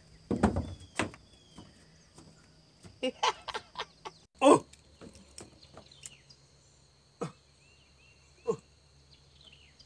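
A few knocks and thumps on wooden dock boards, some short wordless vocal sounds, and isolated clicks, with faint bird chirps in the background.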